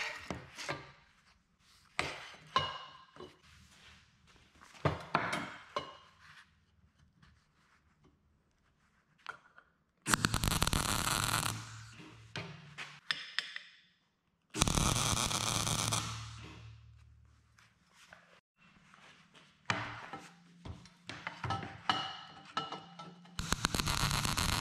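Steel parts knocking and clinking as they are handled, then three bursts of electric arc welding crackle, each lasting one to two seconds, the last running to the end.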